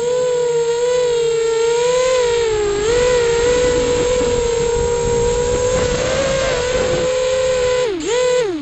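Quadcopter's electric motors and propellers whining steadily, the pitch wavering as the throttle changes. Near the end the whine dips, recovers, then falls away sharply as the motors cut out: a radio failsafe, triggered by the GoPro's Wi-Fi live stream interfering with the control link.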